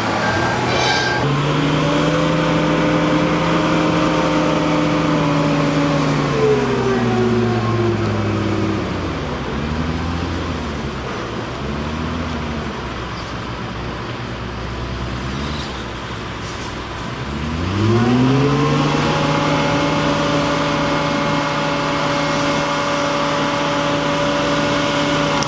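Heavy logging truck's engine running at steady high revs. About six seconds in it slows, its pitch wobbling up and down for several seconds, then it revs back up sharply near the 18-second mark and holds steady again.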